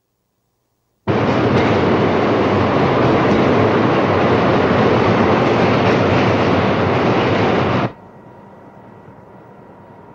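Loud noise of a subway train running, starting suddenly about a second in and cutting off abruptly near the end, leaving a much quieter steady hiss with a faint steady tone.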